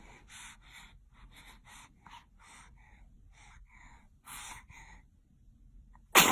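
A baby's quick gasping breaths, about three a second, with a louder catch of breath a little past four seconds in, then a sharp, loud sneeze right at the end.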